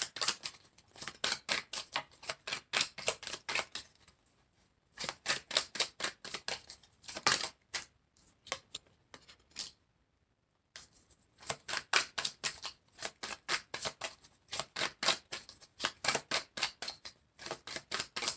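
Tarot deck shuffled overhand by hand: rapid runs of card-on-card flicks in several bursts, with short pauses about four seconds in and again around ten seconds.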